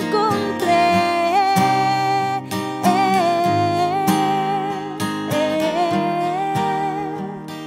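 A woman singing a slow Spanish pop ballad live, holding long notes between lines, over strummed acoustic guitar.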